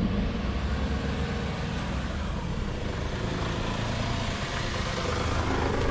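Car pulling away and driving slowly: steady engine and tyre noise that grows a little louder near the end.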